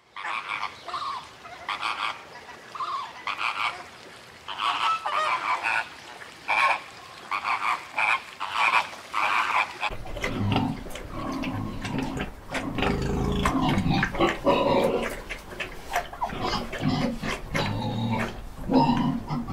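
A flock of flamingos honking, many short calls overlapping. About halfway through, it switches to pigs in a pen grunting and squealing.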